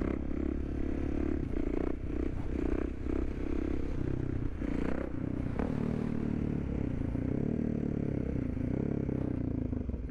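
Supermoto motorcycle's single-cylinder engine running at fairly steady revs on the move.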